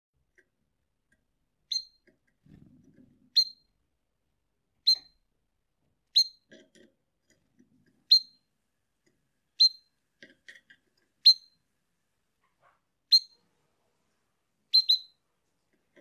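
Domestic canary giving single short, sharp chirps, about nine of them at a steady pace of roughly one every one and a half seconds, the last one doubled.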